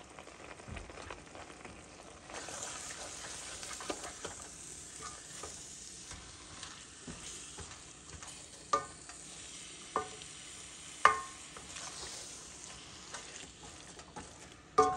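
Chicken mince sizzling as it fries with spices in a stainless steel pot, growing louder about two seconds in as it is stirred. Four times the spatula knocks against the steel pot, each knock ringing briefly; these are the loudest sounds.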